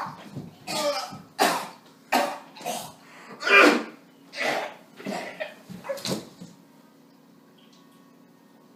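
A man coughing hard in a long fit of repeated harsh coughs, about ten in a row, which stop about six and a half seconds in. It is an acted coughing fit, as if something were stuck in his throat.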